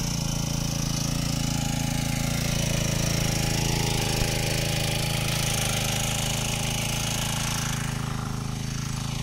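Four-stroke engine of a GT Shakti wheel-type brush cutter running steadily at high speed while its spinning cutting head trims grass, with one brief sharp click about four seconds in.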